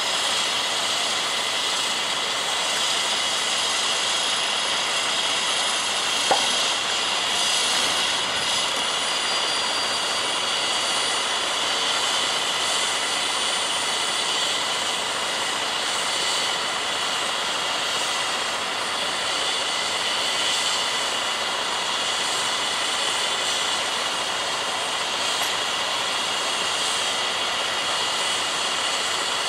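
Steady mechanical whine and hiss of machinery running continuously, with several high tones held level throughout, and one sharp click about six seconds in.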